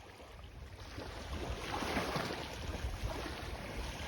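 Wind buffeting the microphone with low rumbling, over the wash of the sea, fading in over the first second or so.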